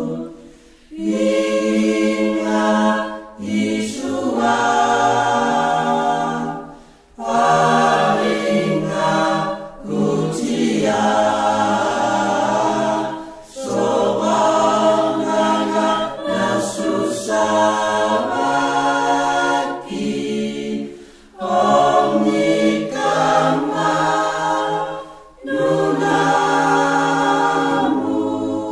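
A choir sings a Greenlandic Christmas hymn in phrases a few seconds long, with short pauses between them.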